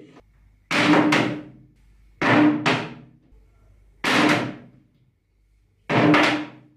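Four heavy thuds, about one every one and a half to two seconds, each a quick double hit that rings on with a low hum and dies away over about a second.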